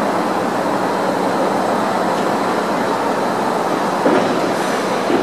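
Osaka Monorail 1000-series straddle-beam monorail train running into the station on its rubber tyres: a steady rolling rumble, with a knock about four seconds in and another near the end.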